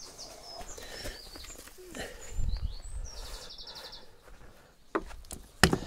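Small songbirds chirping in short high notes, with one rapid trill of evenly repeated notes about three seconds in. Low thumps and a couple of sharp knocks are heard under the birds.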